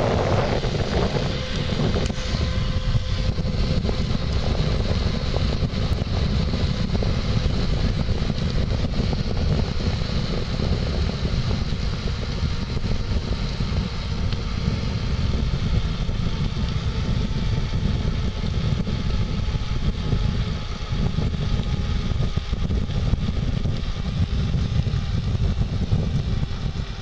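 Steady low wind rumble on the microphone of a moving bicycle, mixed with tyre noise on asphalt.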